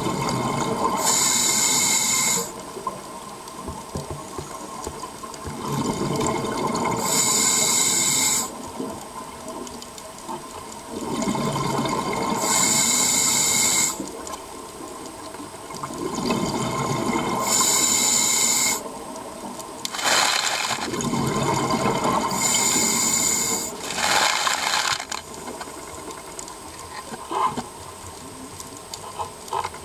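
Scuba diver breathing through a regulator underwater: each breath ends in a loud rush of exhaled bubbles lasting a second or two, repeating about every five seconds, with a quieter hiss of inhaling between them.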